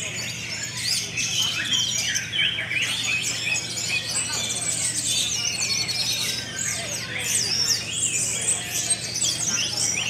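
Many caged contest songbirds singing at once: a dense, continuous tangle of quick high whistles, chirps and trills from several birds overlapping.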